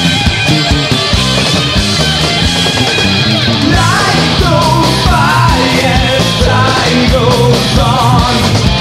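Power/progressive metal band playing, with drums and distorted electric guitars. About four seconds in, a high melodic line with vibrato comes in over the band, either a singing voice or a lead guitar.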